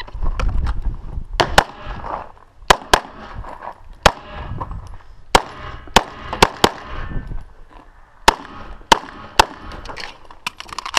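9mm EAA/Tanfoglio Witness Elite Limited Pro pistol fired about a dozen times in a rapid stage run, mostly in quick pairs with short pauses between strings.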